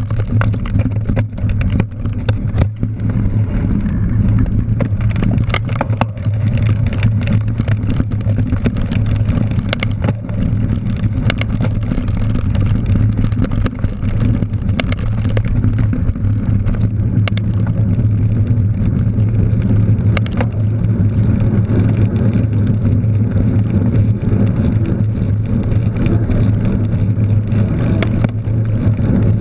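Wind buffeting and riding noise picked up by a handlebar-mounted action camera on a cyclocross bike ridden over grass and pavement. It is a steady low rumble, with sharp knocks and rattles from bumps scattered through it.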